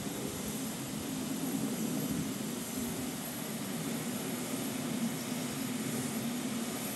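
WD 2-10-0 steam locomotive 90775 standing at the head of its train with steam up, giving a steady low rumble and hiss.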